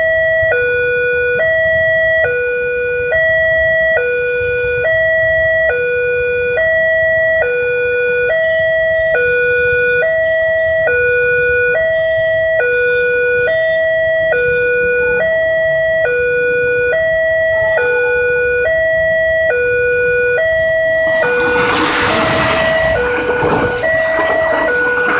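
Railway level-crossing warning siren on a horn loudspeaker, sounding a two-tone hi-lo wail that switches between a higher and a lower pitch a little under a second each. About 21 seconds in, a passing train's loud rushing rumble joins it, and the siren keeps going underneath.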